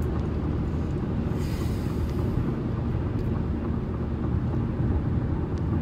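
Steady low rumble of a car heard from inside the cabin, with a faint hiss about a second and a half in.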